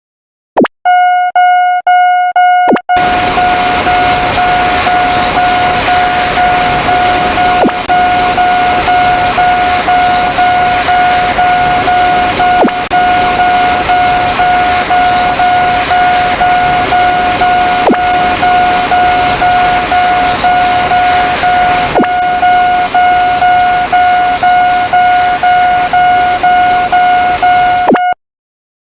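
Railroad crossing warning bell ringing in a fast, even ding-ding rhythm. From about three seconds in, the steady rushing noise of a passing train joins it. Both cut off suddenly near the end.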